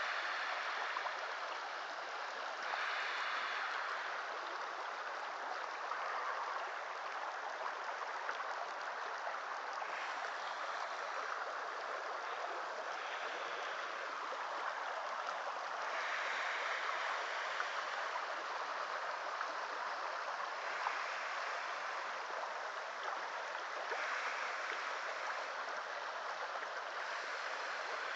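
Shallow creek water running over rocks and gravel: a steady babbling rush, swelling a little louder a few times for a second or two.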